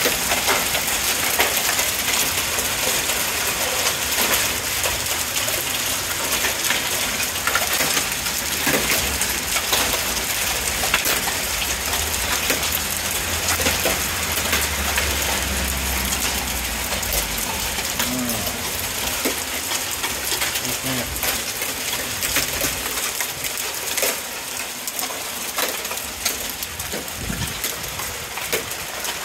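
Hail falling steadily: a dense clatter of many small stones striking pavement and surfaces, with sharp ticks throughout.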